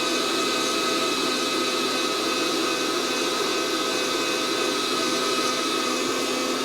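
Fresh Roast SR 800 hot-air coffee roaster running mid-roast: a steady whoosh of its blower fan and heater with a constant hum.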